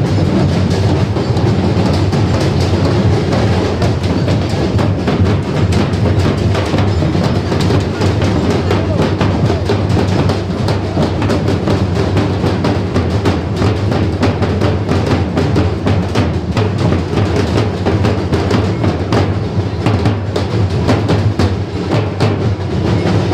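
A street drum band, many drums beaten together with sticks, keeping up a loud, fast, unbroken rhythm.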